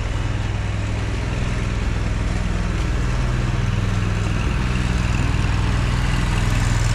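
2001 Walker riding mower's carbureted Kohler engine running steadily, growing slightly louder.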